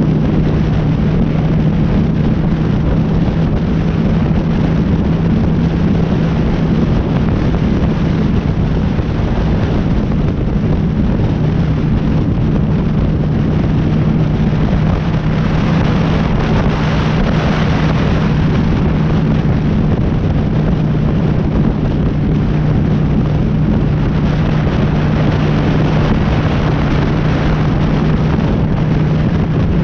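Honda Shadow's V-twin engine running at a steady cruising speed, holding one steady pitch, under wind rushing over the helmet-mounted GoPro's microphone. The rushing grows a little louder for a few seconds about halfway through.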